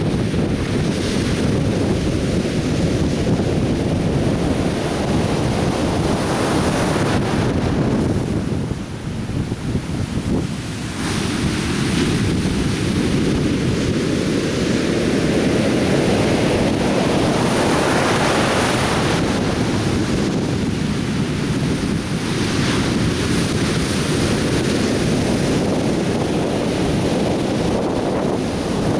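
Atlantic Ocean surf breaking on a beach: a continuous wash of waves that swells and ebbs, with a louder break a little past halfway.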